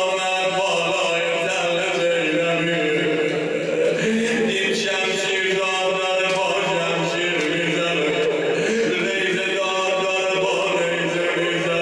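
A man's voice chanting a Persian mourning elegy (noha) into a microphone, in long, held, ornamented phrases.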